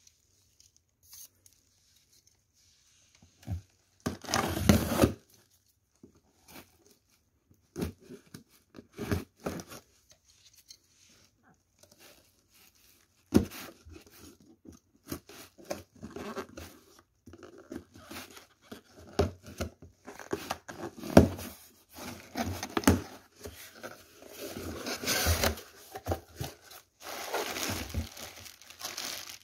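Unboxing a cardboard shipping box: packing tape torn off and cardboard flaps handled, in scattered rips and scrapes. Busier plastic crinkling follows over the second half as plastic air-pillow packing and a plastic bag are pulled out of the box.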